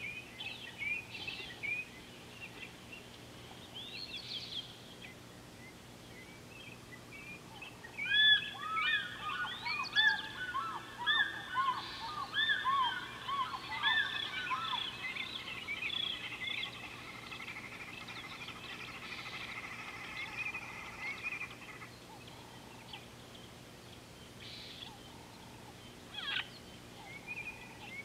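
Several birds calling at once: a loud run of repeated, arching calls begins about eight seconds in, many overlapping for several seconds before thinning out and trailing off. Softer scattered calls come before and after.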